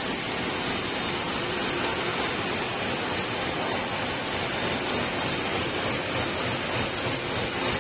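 Automatic four-line plastic T-shirt bag cutting and handle-punching machine running at high speed: a steady, dense mechanical whirring noise with the hiss of plastic film running through its rollers.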